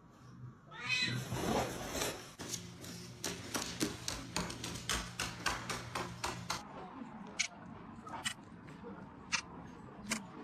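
A cat meows about a second in, followed by a run of sharp clicks and taps that thin out to a few scattered clicks near the end.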